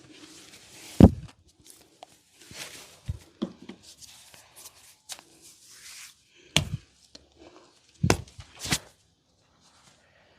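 Vigorous hand massage: a string of sharp slaps and thuds as hands strike the head, neck and back, the loudest about a second in, with softer rubbing between the strikes.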